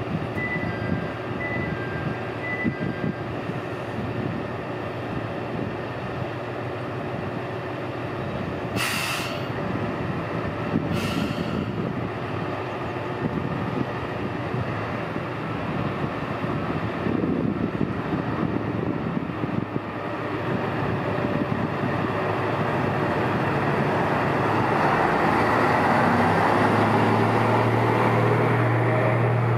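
Tosa Kuroshio Railway 9640 series diesel railcar idling at the platform, with two short hisses of air about nine and eleven seconds in. From about twenty seconds its diesel engine runs up louder and steadier as the car pulls away.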